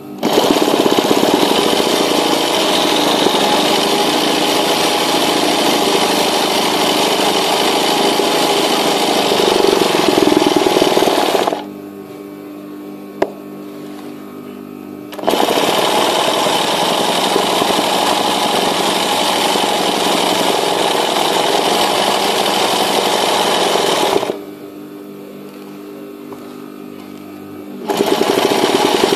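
Sewing machine stitching freehand embroidery at a steady fast pace, running in long stretches: it stops about eleven seconds in, starts again some four seconds later, stops again a little past halfway, and starts up once more near the end.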